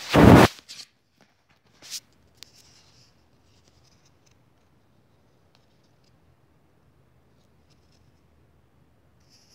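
Handling noise from the recording phone: a loud scratchy rub against the microphone in the first half second, a few shorter scrapes over the next two seconds, then near silence.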